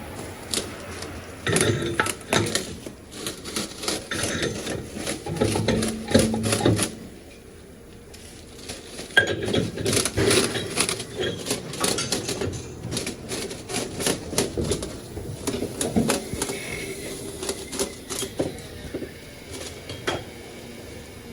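Metal tools and parts clanking and knocking in quick, irregular clicks during tyre-changing work, with a quieter pause about seven to nine seconds in.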